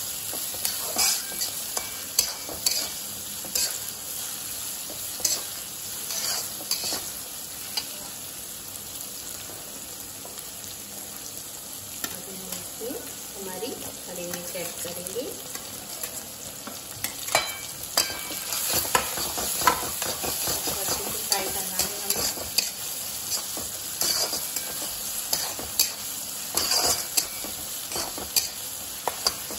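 Chopped garlic and ginger sizzling in hot oil in a wok, with a steady hiss and the metal spatula scraping and clicking against the pan as it is stirred. The clicks are sparser in the middle stretch.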